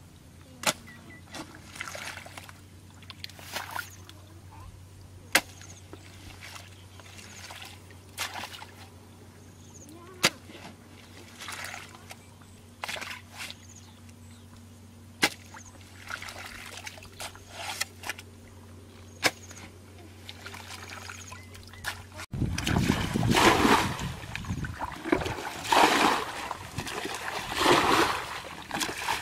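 Muddy water splashing and sloshing as someone wades and works the mud of a shallow ditch pool, with a few sharp clicks and a steady low hum. About two thirds of the way in, the sound turns to loud, repeated splashing as water is scooped and poured out with a bucket, bailing the pool dry to catch fish.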